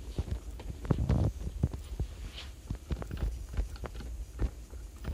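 Footsteps and handling knocks from a handheld camera being carried: a run of irregular soft thuds and clicks, several a second.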